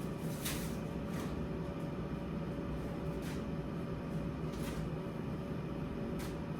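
Steady low mechanical hum with a faint steady whine, and about five brief crinkles of grocery packaging being handled.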